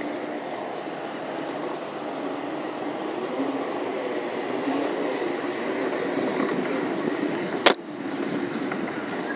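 Segway rolling over a paving-stone promenade: a steady rumble of the tyres on the pavers, with a single sharp knock near the end.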